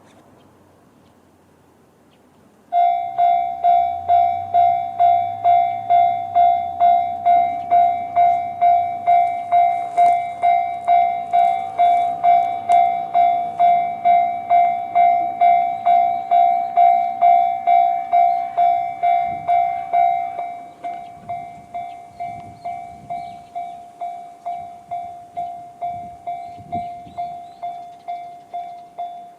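Japanese railway level-crossing alarm sounding the JR standard electronic bell tone: it starts suddenly about three seconds in and repeats evenly at about two dings a second. Around twenty seconds in the ringing drops noticeably in volume and carries on.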